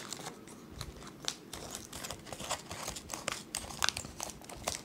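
Scissors cutting open a plastic jerky pouch: the plastic crinkles, with many small sharp clicks and snips throughout and a single louder knock right at the start.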